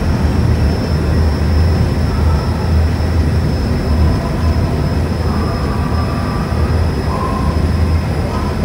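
Deep, steady drone of the ferry boat General Joe Potter's diesel engine, heard from on board.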